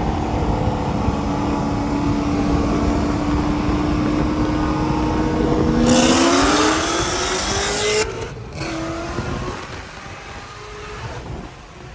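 Car engine held at steady high revs, then rising in pitch with a rush of noise about six seconds in as it accelerates hard. The sound drops off abruptly about eight seconds in, leaving a quieter engine.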